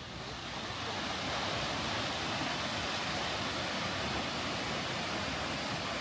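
Steady rush of falling water from Kegon Falls, a tall waterfall, fading in over about the first second and then holding even.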